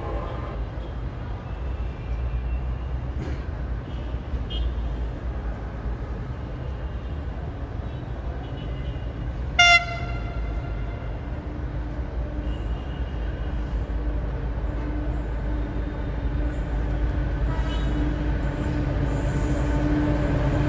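Diesel-electric locomotive approaching along a station track, its engine rumbling and growing louder as it nears. About ten seconds in it gives one short, sharp blast of its horn.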